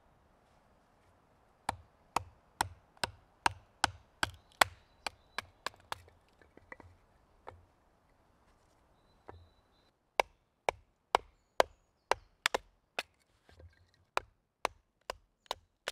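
Splitting kindling with a knife on a chopping block: sharp wooden knocks about twice a second as the knife is batoned down through small logs, in two runs with a short pause a little past halfway.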